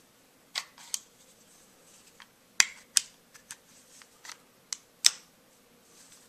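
Steel parts of a Colt 1907 .45 ACP pistol clicking and clacking as the slide and barrel are fitted back onto the frame during reassembly. There are about nine sharp metallic clicks at irregular intervals, the loudest about two and a half and five seconds in.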